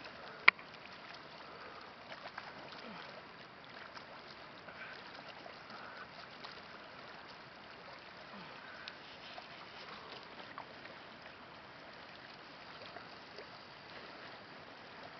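Soft water sounds of a swimmer's slow breaststroke in a calm lake: a steady gentle wash with faint small splashes. A single sharp click about half a second in.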